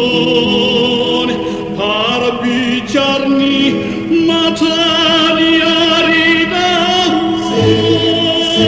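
Vocal group singing a Batak folk song in close harmony, several voices holding long notes with vibrato and moving to a new chord every second or so; a low bass note joins near the end.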